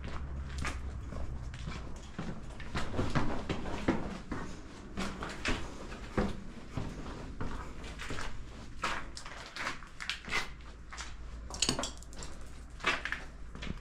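Footsteps scuffing and crunching on a gritty, debris-strewn tiled floor, with many irregular clicks and knocks.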